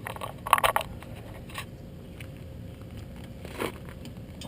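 Clutch cable and its metal end fittings being handled and worked through a hole in the ATV's frame: a quick cluster of clicks and rattles about half a second in, then a few single light clicks and a short knock.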